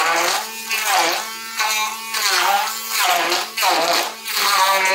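Electric hand blender running in a bowl of chopped tomatoes, a whining motor whose pitch dips and recovers over and over, about every two-thirds of a second, as the blade cuts into the tomato chunks.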